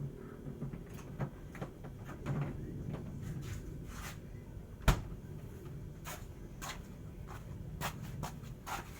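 Scattered light clicks and knocks of tools and metal parts being handled, over a low steady hum, with one sharp, louder knock about five seconds in.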